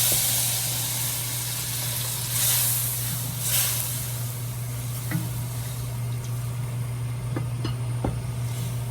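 Pork stock sizzling and hissing in a hot pan, with loud surges near the start and again about two and a half and three and a half seconds in, then settling to a steadier hiss with a few light clicks from the utensil.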